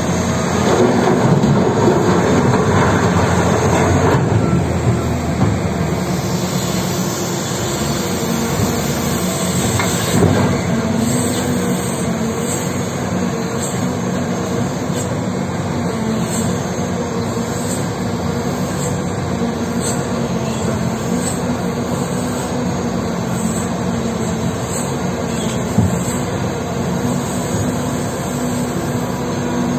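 CAT 6030 hydraulic mining shovel running under load: a steady diesel-and-hydraulic drone with several held tones. In the first few seconds a rush of rock pours from its bucket into a haul truck's bed, and single knocks come about ten seconds in and again near the end.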